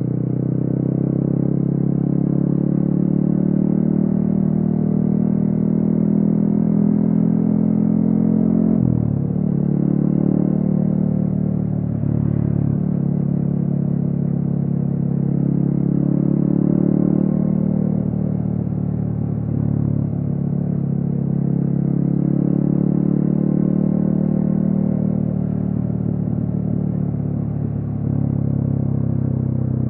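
Yamaha XSR155's single-cylinder engine running through a DIY exhaust while cruising, its pitch rising and falling with the throttle, with sudden drops in pitch around nine and twelve seconds in, as on gear changes.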